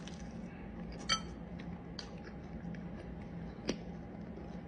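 A light clink with a short ring about a second in, then a softer tick near the end, over a low steady hum.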